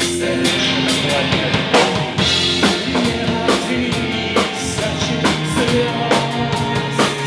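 Live rock band playing an instrumental passage: drum kit with bass drum and snare hits over guitar and bass.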